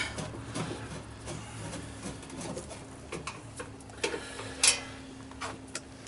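Scattered small clicks and knocks from hands and tools working in a metal breaker panel, with one sharp click near the end, over a faint steady hum.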